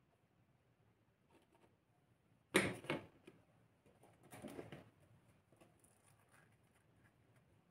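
Metal spoon set down in a stainless steel mixing bowl, two sharp clinks about half a second apart, followed by softer handling noise as a baked batter cup is picked up and pulled open.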